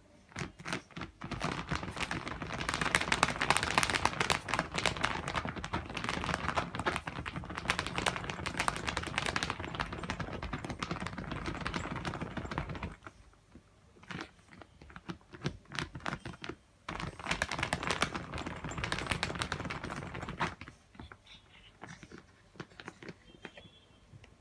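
Shih Tzu puppy scratching very fast with her paws: a long run of rapid clicking scratches, a pause with a few short bursts, then a second long run, tailing off into a few scattered scratches near the end.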